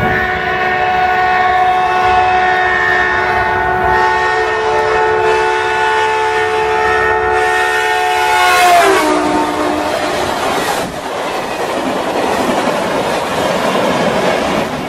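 Caltrain F40PH-2CAT diesel locomotive sounding a long multi-chime air horn as it approaches at speed. The horn drops sharply in pitch as the locomotive passes, a little under nine seconds in, and stops soon after. Then comes the rush and clickety-clack of the passenger cars going by on the rails.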